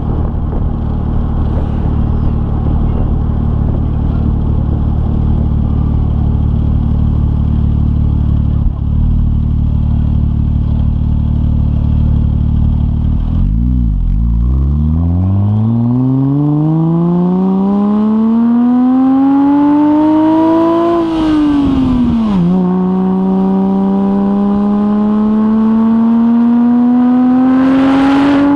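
Modified Porsche 996 Turbo's twin-turbo flat-six, on a decatted Kline 70 mm stainless X exhaust, running low and steady, then accelerating hard about halfway through. Its pitch climbs through one gear, drops at an upshift, and climbs again through the next gear, with a brief hiss near each shift.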